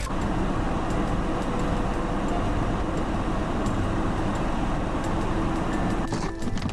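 Steady low rumble of a motor vehicle running, with a faint steady hum. A series of sharp clicks comes in near the end.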